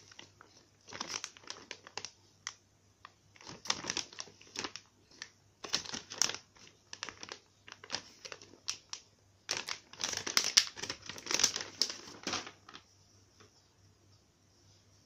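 A clear plastic packaging bag holding a squishy toy, crinkling and rustling in the hands in irregular bursts. The crinkling stops a couple of seconds before the end.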